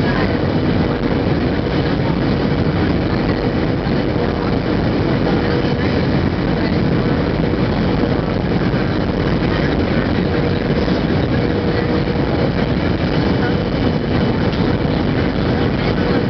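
Boeing 737-700 cabin noise on final approach, heard from a window seat over the wing: the CFM56 engine and the airflow make a steady, even rushing noise with a faint steady hum through it.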